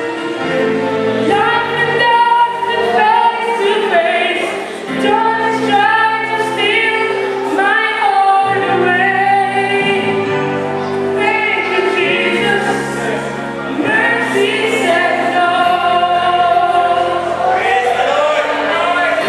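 Choir singing a hymn, with held low notes underneath that change every second or two.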